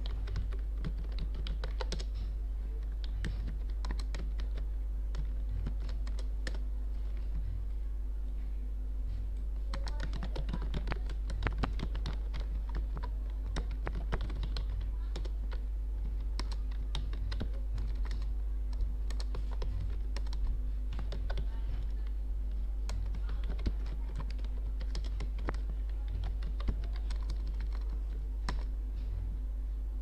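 Typing on a computer keyboard: a quick, uneven run of keystroke clicks, busiest about a third of the way in, over a steady low hum.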